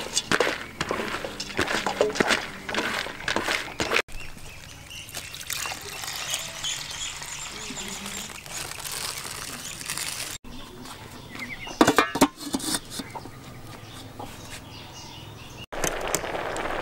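Handfuls of soaked yellow split beans scraped from a plastic bowl and tumbling into a metal cooking pot, a dense patter of small clicks. After a cut, water is poured over the beans in the pot, with a few sharp knocks later on.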